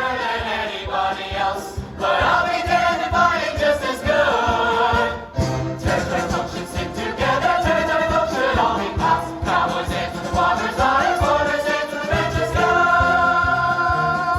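A stage chorus sings a musical-theatre song together over an instrumental accompaniment with a steady beat. Near the end they hold a long final chord.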